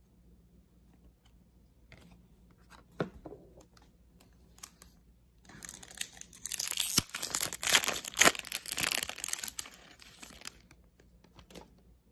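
Foil wrapper of a Panini Mosaic football card pack being torn open and crinkled: a loud crackling tear lasting about five seconds from about the middle, with a few light clicks and taps before and after it.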